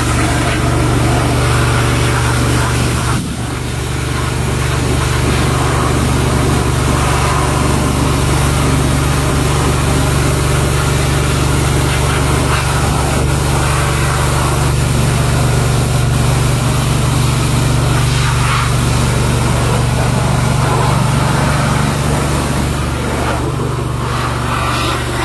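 A steady engine drone with a strong low hum, dipping briefly about three seconds in.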